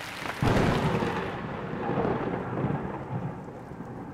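Rain falling, with a clap of thunder breaking about half a second in and its low rumble slowly fading.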